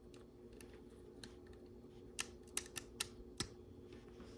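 Small plastic LEGO pieces clicking as they are handled and pressed into place: a few faint ticks, then a run of about five sharp clicks from about two seconds in.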